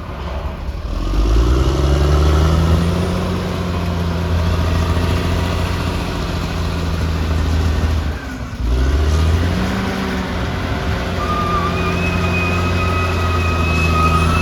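Caterpillar D6R XL bulldozer's diesel engine revving up and running hard, easing off briefly about eight seconds in and then picking up again. A steady high whine joins in near the end.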